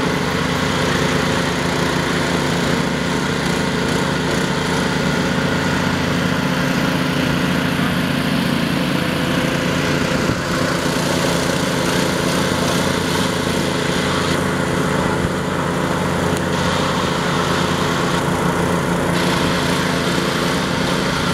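An engine running steadily at one constant speed, a continuous drone from the salvage equipment working the lift.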